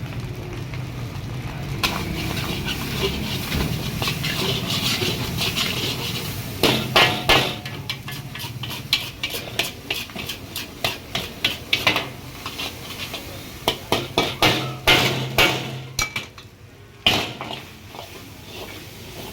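Metal spatula clanging and scraping against a wok in quick, irregular strokes as fried rice is mixed and tossed, over a steady low hum.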